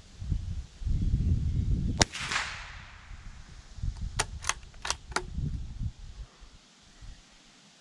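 A single rifle shot from a Sako Quad bolt-action rimfire in .22 LR, a short sharp crack with a brief echoing tail. About two seconds later come four quick metallic clicks as the bolt is worked to chamber the next round.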